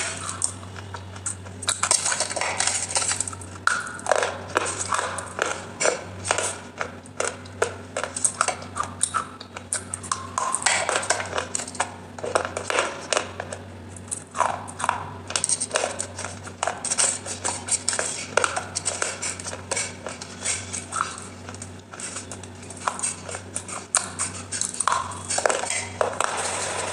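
Close-up chewing and crunching of clay pieces coated in wet clay paste, in irregular crisp bites, with a utensil clinking and scraping on a steel plate. A faint steady hum lies underneath.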